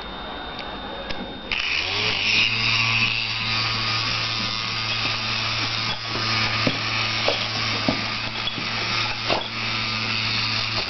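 Mini handheld fan switched on about a second and a half in. Its small motor spins up and then runs with a steady whir. A few sharp ticks sound over it in the second half.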